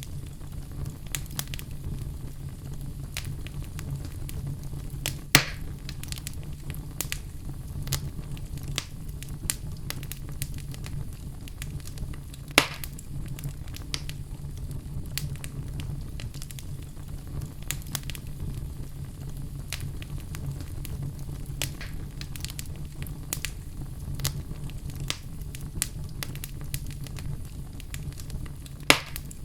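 Crackling fire sound effect: a steady low rumble of flames under frequent small crackles, with louder pops about five seconds in, about twelve seconds in, and near the end.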